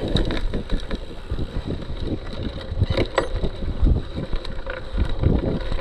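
Cyclocross bike ridden hard through deep, soft sand: tyres churning and crunching in the sand and a gritty drivetrain with sand in it, over wind buffeting the microphone.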